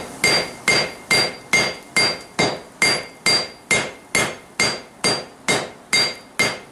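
Hand hammer striking a glowing layered steel billet on an anvil in a steady run of about sixteen blows, roughly two and a half a second, each with a brief ring from the anvil. These are forge-welding blows, worked down the billet at welding heat to set the welds between the layers.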